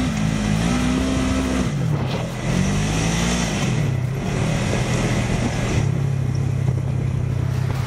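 Polaris RZR side-by-side's engine under throttle on a dirt track. It revs up and eases off twice in the first few seconds, then runs at an even pace, with a steady rushing noise of wind and tyres over it.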